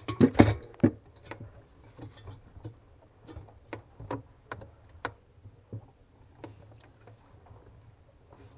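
Hands fitting plastic wiring plugs and parts back into a refrigerator's freezer compartment: a quick run of sharp clicks and knocks in the first second, then scattered faint ticks.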